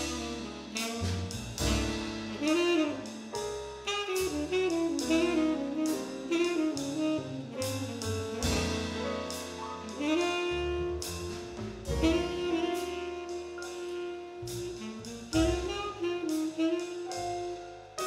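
Tenor saxophone playing a slow jazz melody in long held notes with vibrato, over a band backing of piano and drum kit with low notes underneath.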